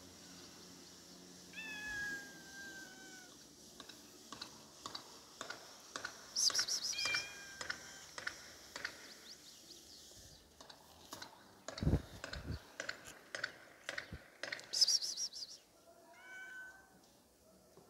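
Cat meowing three times: a long falling meow about two seconds in, a shorter one near the middle and another near the end. Between them come scattered light clicks and taps, two brief high rustling bursts, and a dull thump about twelve seconds in.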